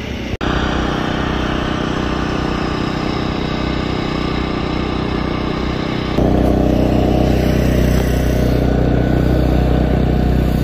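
An engine running steadily, cutting in just after a brief gap near the start; about six seconds in it becomes louder and heavier.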